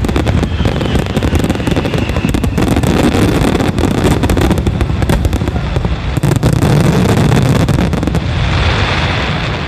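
Finale barrage of an aerial fireworks starmine: a dense, rapid run of shell bursts banging one over another. Near the end the bangs stop, leaving a steady rushing noise.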